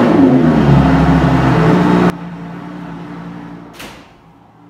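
A car engine revving loudly, its pitch falling away as it settles, cut off abruptly about two seconds in; a quieter steady hum carries on after it, with a single click near the end.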